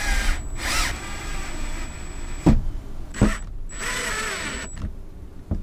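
A cordless drill-driver driving screws through a ceiling dome light's mounting ring. The motor whirs in two runs, its pitch bending as each screw draws in, with sharp clicks between and near the end.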